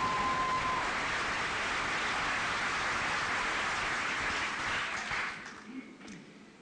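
Audience applauding, dying away about five to six seconds in.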